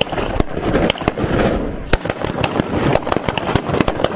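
Small-arms blank gunfire in a WW2 battle reenactment: a rapid, irregular string of sharp shots, several a second, with more distant popping between them.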